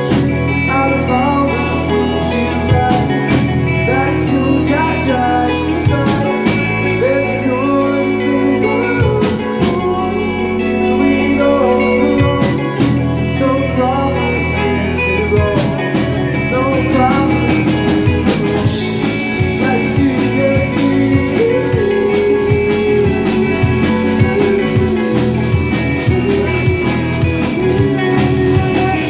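Live band playing a bluesy rock song, with bass, drums and melody lines, likely guitar. The drumming gets busier about halfway through.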